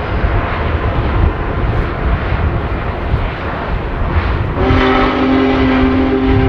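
Steam locomotive's heavy, steady rumble, then about four and a half seconds in its chime whistle starts and holds one steady chord.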